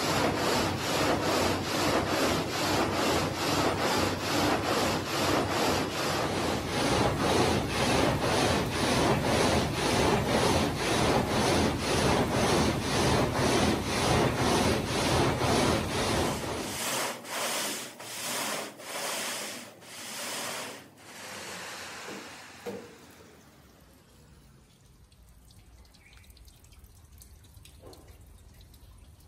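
Marble gang saw cutting a block under a water spray: the steel blade frame rasps back and forth through the stone in an even rhythm, about two strokes a second. About 17 seconds in the strokes become slower and fade away, leaving faint trickling and dripping water.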